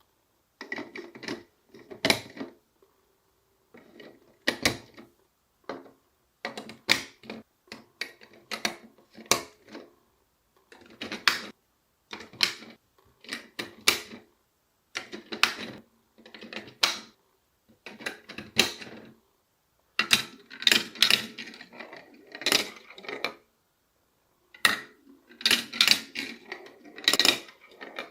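Marbles rolling and clacking through a block marble run: clusters of sharp clicks and rattles with a faint rolling rumble, broken by short silent gaps.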